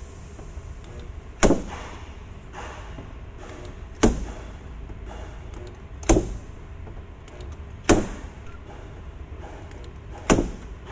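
Spot-weld dent puller's slide hammer striking as it pulls a dent out of a car door panel: five sharp metallic knocks about two seconds apart, each ringing briefly.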